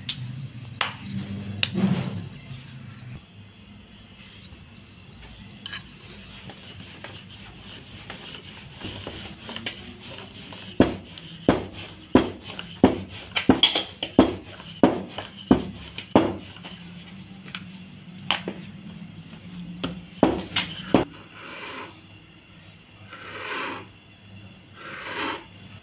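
Dough being rolled out with a rolling pin on a tabletop: a regular run of sharp clicks, about one and a half a second, with bangles jingling on the wrists. Near the end come three longer scraping strokes of a knife cutting slits in the dough sheet.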